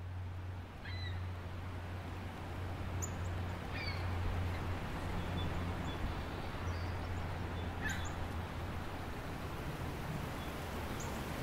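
Steady rushing of a waterfall, with a few short bird chirps over it and a low steady hum beneath.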